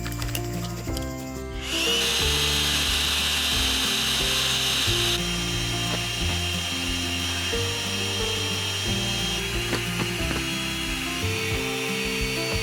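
A small electric motor whirring steadily, starting about two seconds in and dropping in level about five seconds in, over background music with stepped notes.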